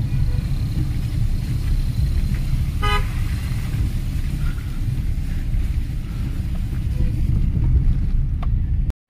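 Steady low rumble of a car on the move, with one short car-horn toot about three seconds in.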